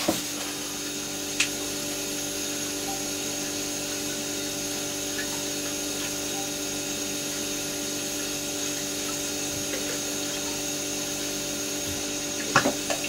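Steady machine hum holding several pitches level, with a single sharp knock about a second and a half in and a few clunks near the end.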